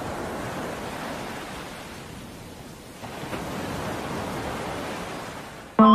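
Steady rushing noise with no distinct tones, outdoor ambience picked up by a phone's microphone; it dips slightly in the middle and cuts off as music starts at the very end.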